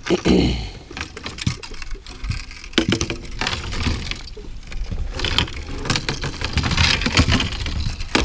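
Irregular knocks and clatter of muskie fishing rods being pulled and shifted among their rod holders, the rods bumping against each other, over a steady low rumble.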